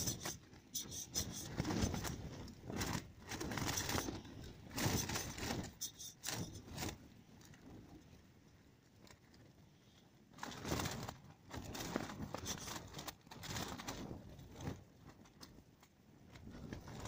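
Strong wind gusting against a tent, the fabric flapping and snapping in surges, with a quieter lull about halfway through before the gusts return.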